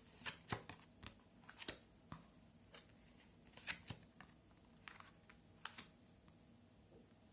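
Faint scattered clicks and short rustles of tarot cards being handled and laid down on a table.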